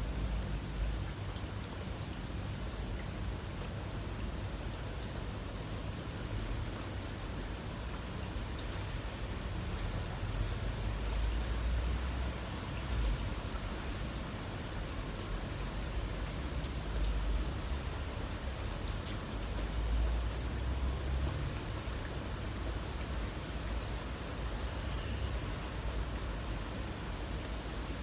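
Crickets chirring in one continuous high-pitched trill, over an even background hiss and a low, uneven rumble.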